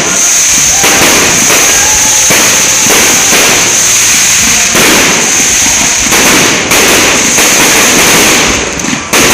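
An aerial fireworks display firing a dense, loud barrage of bangs and crackling with no let-up, easing briefly just before the end.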